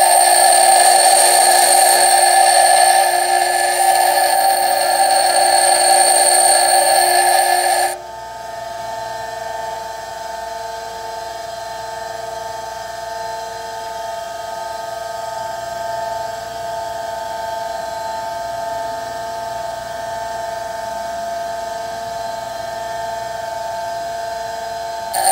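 Bench grinder wheel grinding the cutting edge of a steel twist drill bit: a loud steady grinding whine with hiss. About eight seconds in it drops suddenly to the grinder's quieter steady running hum as the bit comes off the wheel.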